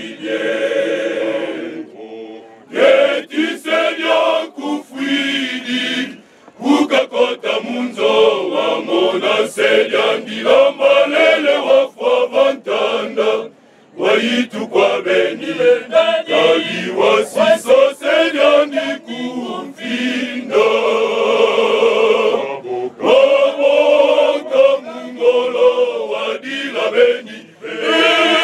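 Male choir singing unaccompanied, many voices together, breaking off briefly a few times between phrases.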